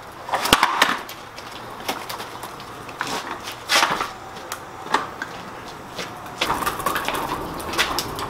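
Large maple burl being tipped and rolled across a concrete floor: irregular knocks, scrapes and crunches of wood and bark on concrete, busier near the end.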